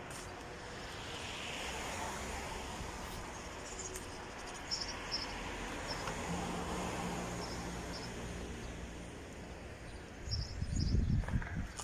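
Outdoor suburban street ambience: distant road traffic swelling and fading as a soft hiss, with short high chirps of small birds scattered through it. A brief low rumble comes about ten seconds in.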